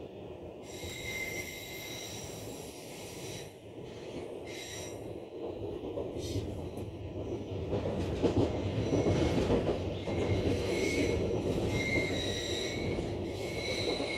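Car-shuttle train's wagons rolling on the rails, with high-pitched wheel squeal that comes and goes over the rumble. The rumble grows louder from about eight seconds in.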